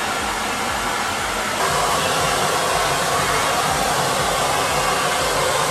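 Hand-held hair dryer blowing steadily over a wet dog's coat, its tone shifting and getting slightly louder about a second and a half in.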